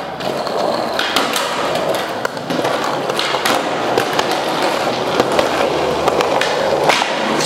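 Skateboard rolling on smooth concrete: a steady rumble from the wheels, broken by a few sharp clacks of the board.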